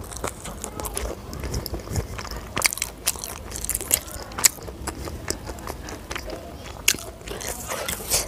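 Close-up eating sounds of a person biting and chewing spicy fried rice and chicken: irregular sharp wet clicks and crunches, coming thicker after the first couple of seconds.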